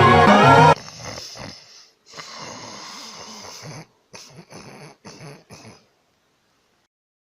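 A sleeping cat snoring: one long breath, then four or five short snores in a row. Background music cuts off under a second in.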